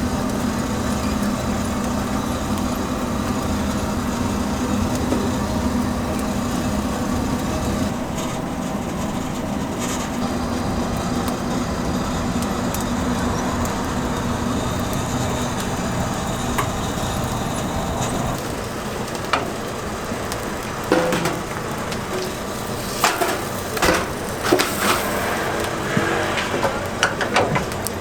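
A steady mechanical hum from a motor or fan at a food stall, with a faint sizzle. From about two-thirds of the way in it is broken by a run of sharp knocks and clatter, like utensils or metal being handled.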